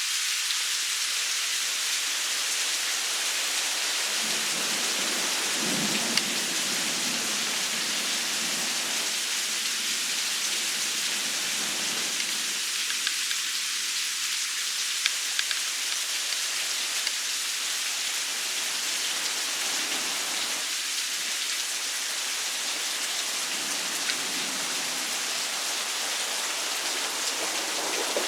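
Rain falling steadily in a thunderstorm, an even hiss with a few sharp drop taps, and low rumbles of thunder about four seconds in and again around twenty seconds in.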